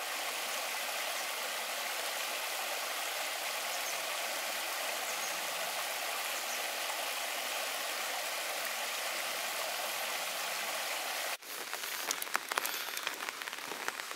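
Small stream rushing and splashing over shallow rock ledges in a steady, even wash. About eleven seconds in it cuts to falling rain, with irregular ticks of drops hitting close by.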